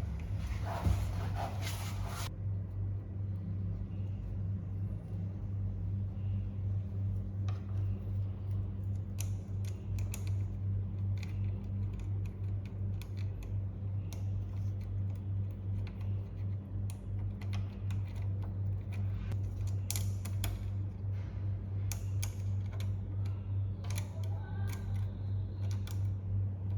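Scattered small clicks and taps of door-lock parts being handled while a new lock coil is fitted, over a steady low hum. A louder rushing noise cuts off suddenly about two seconds in.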